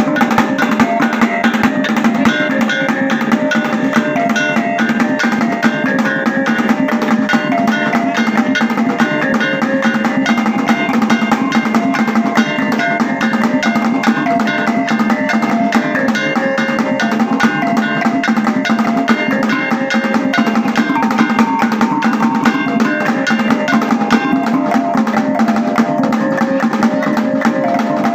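Maranao kulintang ensemble playing: a row of eight small bossed gongs struck in quick melodic runs, over a steady fast beat of thin sticks on a dabakan goblet drum.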